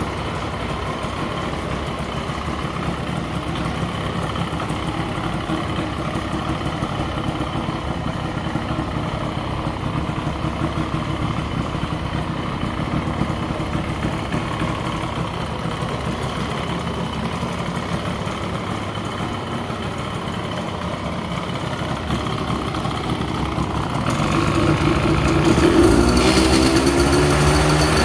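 Yamaha Banshee 350's stock twin-cylinder two-stroke engine idling steadily, then revved up and down a few times near the end.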